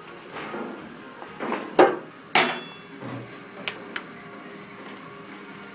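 Stainless steel pot and hopper knocked and handled: a few short clanks, the loudest two close together about two seconds in, one ringing briefly, then lighter taps. A faint steady machine hum runs underneath.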